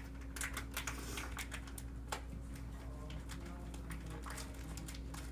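Raindrops tapping irregularly on a hard surface close to the microphone, several sharp taps a second, over a steady low hum.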